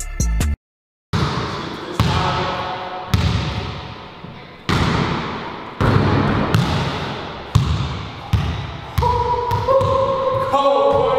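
Basketball bouncing on a hardwood court floor in an echoing indoor gym, with sharp thuds about once a second, each ringing out in the room.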